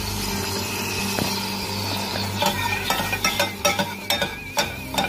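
Melted butter sizzling steadily in a pan. From about two and a half seconds in, a spoon stirs it, with quick, irregular clinks against the pan.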